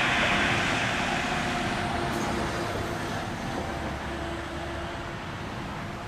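Road traffic: a passing vehicle's noise fading away.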